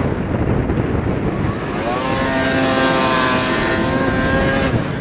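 Snowmobile engine running hard through deep powder. A rough rumble at first, then about two seconds in it revs up to a high, steady whine that cuts off near the end.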